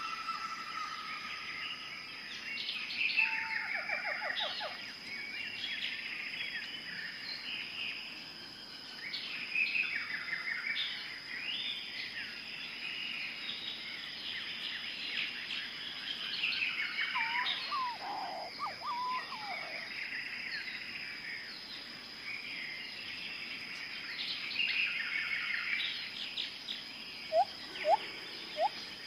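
Jungle ambience of several birds chirping and trilling over a steady high-pitched hum, with a few short, sharp rising calls near the end.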